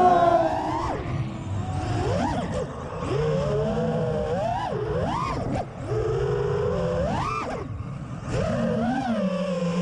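Brushless motors of a 5-inch FPV freestyle quadcopter (RCinPower Smoox 2306.5 2580kv with Gemfan 5.1-inch props) whining, the pitch rising and falling with throttle punches every second or so, then settling to a steady tone near the end.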